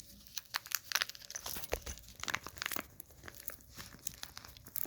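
Rapid crinkling and rustling with small clicks and scrapes as a rifle's rolled-up field repair kit is pulled out of a grip storage tube and unrolled. The crinkling is busiest in the first three seconds, then thins to scattered clicks.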